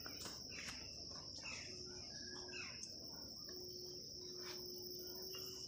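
Faint, steady high-pitched drone of an insect chorus in the trees, with a few faint short chirps mixed in.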